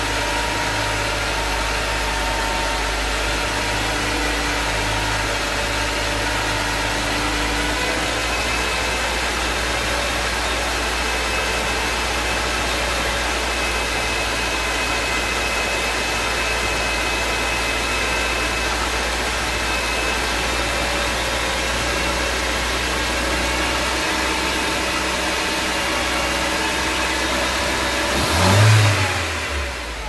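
Mercedes engine with KE-Jetronic fuel injection running steadily at raised revs, held up for the EHA current test. Near the end comes a brief louder surge.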